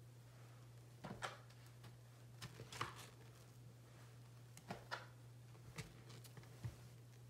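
Soap-loaded sponge being squeezed and dunked in sudsy water, giving soft squelches and splashes at irregular moments, over a low steady hum.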